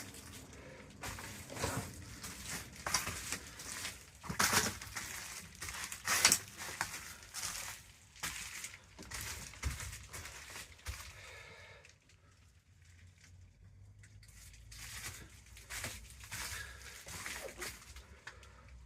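Irregular clicks, knocks and rustling of things being handled, in two stretches with a quieter pause about twelve seconds in.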